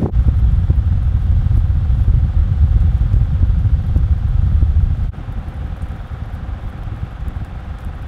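Wind from an electric desk fan buffeting a Rode VideoMic Pro shotgun mic in its foam windscreen: a heavy, steady low rumble. About five seconds in it cuts suddenly to the same mic under a furry Micover deadcat, and the rumble drops to a much lower level.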